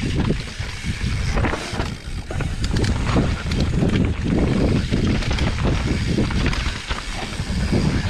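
Mountain bike riding fast down a dirt downhill trail: wind buffeting the microphone over the steady rumble of tyres on dirt, with frequent short clattering knocks from the bike over rough ground.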